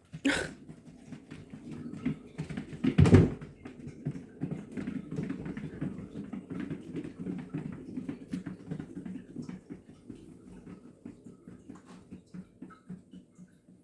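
Cat running in a cat exercise wheel: the wheel rumbles and clatters continuously with many quick clicks, with a loud thump just after the start and another about three seconds in. The sound fades toward the end.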